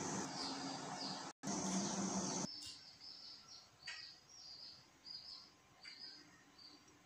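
Pot of walnuts in boiling water bubbling with a dense hiss, broken by a brief gap about a second and a half in. From about two and a half seconds the sound turns much quieter, with a small bird chirping over and over in short high notes and a couple of light clicks.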